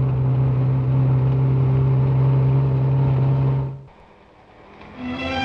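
Car engine running at a steady pitch, heard from inside the car. It cuts off abruptly just under four seconds in, leaving a faint hum, and string music comes in near the end.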